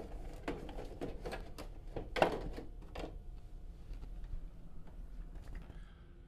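Plastic back cover of a Sony Bravia LCD TV being pulled and pried around its connector panel: a run of clicks and knocks over the first three seconds, the loudest about two seconds in, then it goes quieter.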